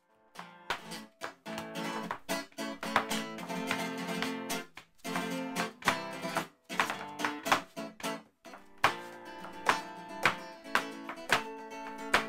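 Flamenco acoustic guitar music: sharp strummed chords with a couple of brief pauses, the strokes coming thicker in the last few seconds.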